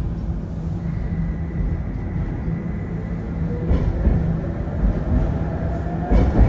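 Tram running on its rails, heard from inside: a steady low rumble, with a whine that rises slowly in pitch over the second half and two knocks, the louder one near the end.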